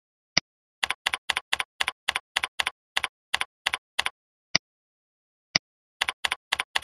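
Computer keyboard typing and mouse clicks. A single click comes first, then about three seconds of quick keystrokes at roughly four a second. Two more single clicks follow about a second apart, and typing starts again near the end.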